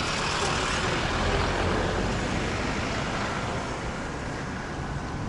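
Road traffic: a motor vehicle passing close by, its tyre and engine noise swelling and then fading away.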